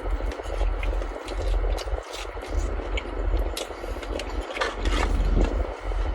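Close-up chewing and crunching of a fried Korean corn dog's crisp batter, scattered crackly clicks over a steady low rumble.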